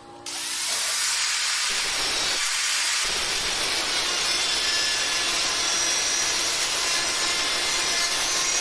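Angle grinder with a thin cutting disc slicing through sheet steel: a loud, steady, hissing grind that starts just after the beginning and holds level throughout.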